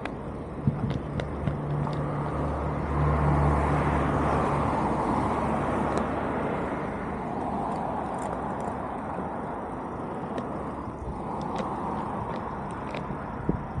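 Street traffic: vehicles going past, their noise swelling and fading twice, with a low engine hum in the first few seconds.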